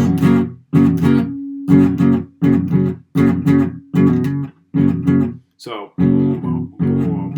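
Acoustic guitar with a capo playing a stop-start riff on an E-shape chord that sounds as F sharp major: repeated strums, each cut off sharply as the fretting hand lifts off the strings to mute them, with short gaps between.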